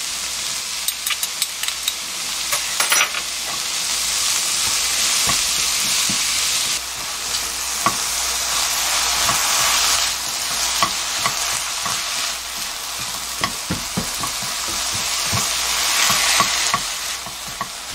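Julienned squash sizzling in oil in a nonstick pan over low heat, stirred with a plastic spatula whose tips tap and scrape the pan in frequent short clicks.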